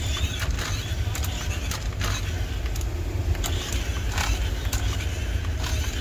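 Toy RC rock-crawler car's rear-wheel-drive electric motor and gearbox whirring as it drives across a hard floor, over a steady low rumble, with several sharp knocks and clicks.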